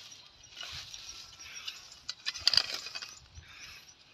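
Metal rat trap rattling, with rustling and a cluster of light clinks and clicks about two to three seconds in.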